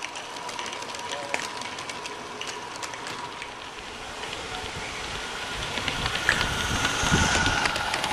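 A 45 mm gauge garden-scale model train rolling past on its track, with wheels clicking over the rail. The running noise swells near the end as the cars pass close by.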